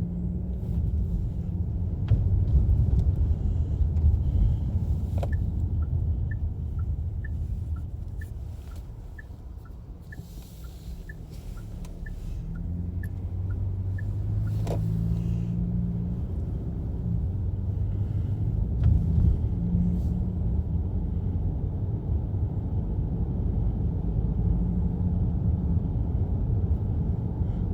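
Low car rumble, heard from inside the cabin. It eases to a lull about a third of the way in, then builds again. Through the lull a turn-signal indicator ticks in an even tick-tock for about seven seconds.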